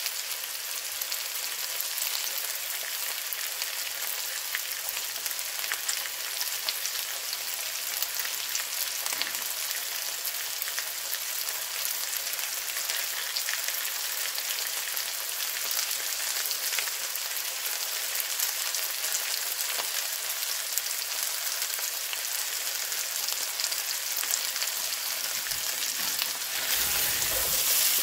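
Sliced potatoes, onions and green peppers sizzling in a frying pan: a steady crackling hiss full of tiny pops. Near the end it gets louder as a spatula stirs them.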